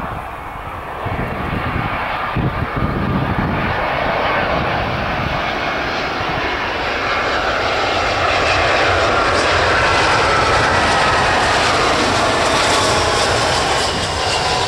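Airbus A320-200 airliner on final approach, its twin jet engines at approach power growing louder as it passes close by. In the second half whining engine tones slide down in pitch as it goes past, and the sound eases slightly near the end.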